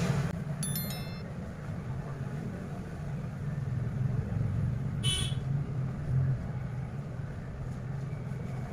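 Steady low hum, with a few short high tones about a second in and a brief high, several-toned toot about five seconds in.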